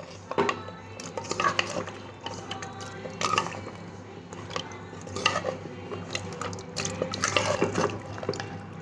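Metal spoon stirring food in a cooking pot, with irregular clinks and scrapes against the pot, over a steady low hum.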